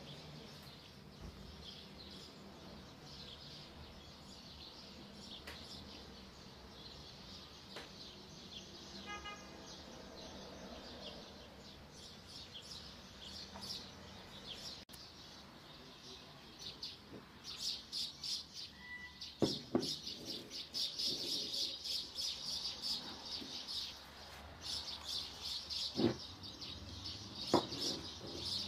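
Small birds chirping, busier in the second half, with a few knocks near the end.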